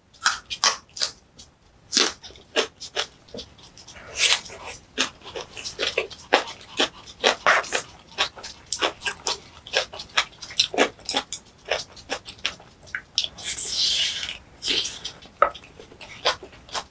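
Close-miked chewing of spicy green onion kimchi: wet smacking and crunching mouth sounds in quick, irregular clicks, with a longer hiss late on.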